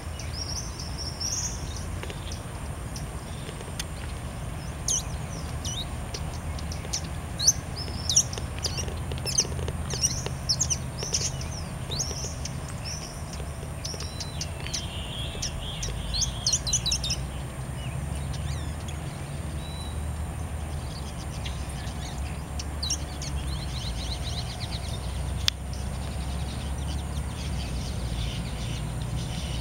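Buffy hummingbird singing: quick bursts of thin, high, sharp notes, busiest in the first half and sparser later, over a steady low rumble.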